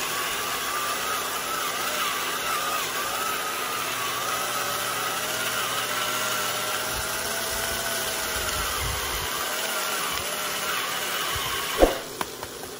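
Electric pepper grinder's small motor running with a steady, slightly wavering whine as it grinds black pepper, stopping with a click near the end.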